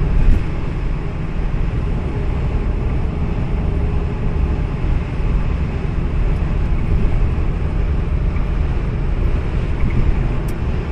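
A lumpy-cammed V8 Holden Commodore running at cruising speed: a loud, steady low rumble mixed with road and wind noise.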